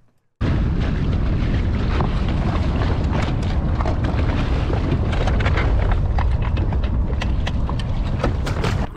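Wind buffeting an exposed camera microphone on a boat deck: a loud, steady low rumble with crackling pops. It starts abruptly about half a second in and drops just at the end.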